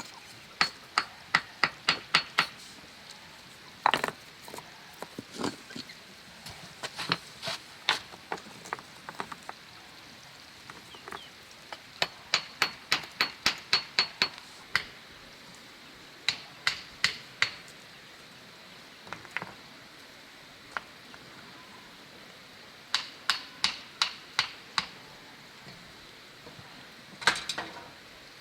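Hammer tapping in runs of sharp, ringing strikes, about three or four a second, with short pauses between runs.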